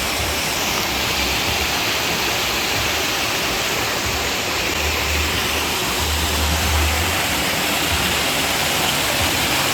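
Waterfall rushing steadily, a loud, even sound of falling water, with brief low rumbles near the middle.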